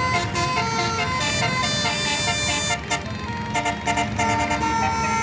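Tour bus 'telolet' multi-tone horn playing a tune of stepping notes, with a short break about three seconds in, over a low engine rumble.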